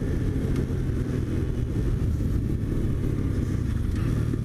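Brand-new X-PRO 125cc sportbike engine running steadily under the rider as the bike slows along the street, the engine still in its break-in period.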